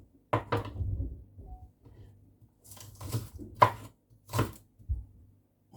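Knife chopping spring onion on a cutting board: a handful of separate, irregularly spaced strikes.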